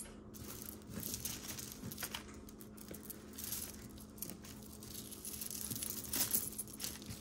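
Costume jewelry handled on a cloth towel: glass beads and metal chains shifting and clicking lightly against each other, with soft rustling as necklaces are drawn out of the pile.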